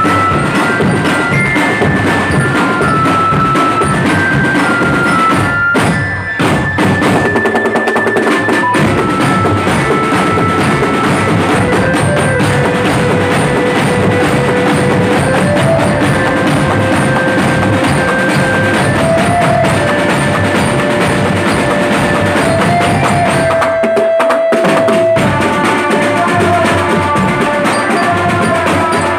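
Drum band playing: marching drums led by large bass drums keep a busy beat under a melody of long held notes. The drums drop out briefly twice, about six seconds in and again about five seconds before the end.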